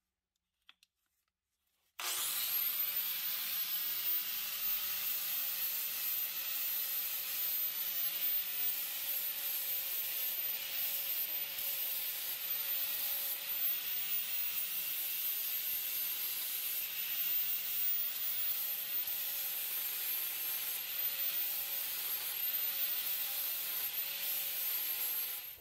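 DeWalt angle grinder with a flap disc grinding old weld off the end of a motorcycle swing arm. It starts abruptly about two seconds in and runs steadily, with a high whine that wavers slightly under load, then stops just before the end.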